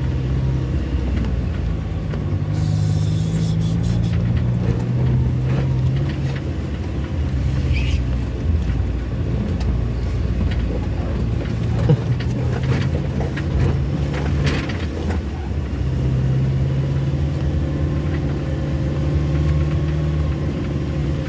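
Hearse's engine running as it drives a rough road, its note shifting up and down, with scattered knocks and rattles from the vehicle.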